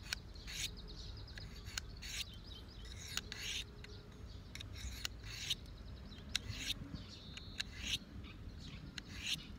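Knife blade drawn across a diamond sharpening stone: a run of short, irregular scraping strokes.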